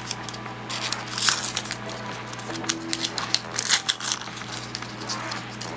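Small plastic toy packaging being opened: scattered clicks, crackles and crinkling rustles.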